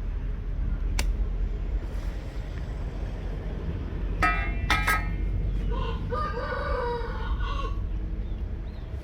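A rooster crowing once, about six seconds in, for nearly two seconds, preceded by two short sharp calls, over a steady low rumble.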